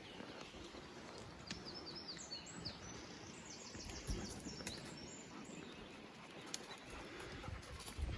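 A small songbird sings a quick run of short, high chirps from about a second and a half in for roughly three seconds, over faint outdoor background noise. A few faint knocks are also heard.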